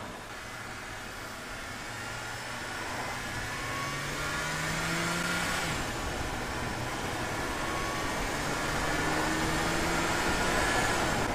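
Car engine pulling and rising in pitch, dropping briefly about halfway through, then rising again, over a steady rush of tyre and wind noise from the moving car.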